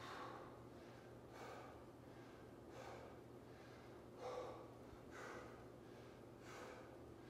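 A man breathing hard with exertion: about six faint, airy breaths in a steady rhythm, one every second or so, the strongest about four seconds in.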